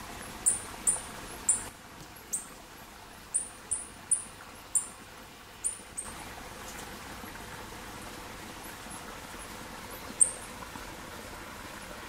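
Young coati giving a series of short, very high-pitched chirps, about ten in quick irregular succession, then a single chirp near the end.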